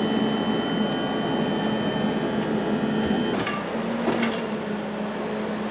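Steady mechanical drone of a running machine with a constant hum, and two short knocks about three and a half and four seconds in.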